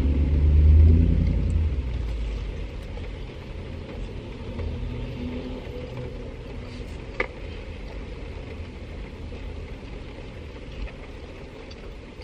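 Low rumble of a motor vehicle engine heard from inside a car, loudest in the first two seconds, then easing to a steady low hum. A single sharp click comes about seven seconds in.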